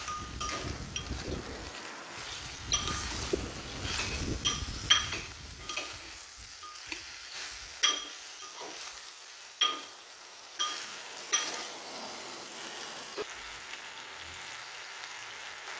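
Frog pieces sizzling in hot oil in a small clay pot as they are stir-fried until seared. A metal ladle clinks against the pot with a short ringing tone about eight times. The sizzle is strongest in the first few seconds and fainter after.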